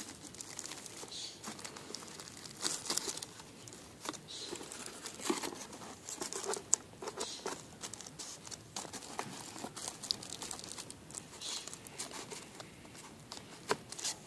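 Clear plastic sheet crinkling and rustling in irregular crackles as it is laid over a foil-lined cardboard box and pressed down by hand.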